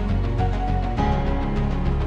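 Background music: sustained chords over a steady low bass, moving to a new chord about a second in.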